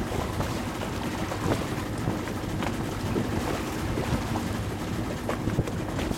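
A boat moving across choppy water: wind buffeting the microphone and water splashing against the hull over a low, steady hum. There are scattered small knocks throughout.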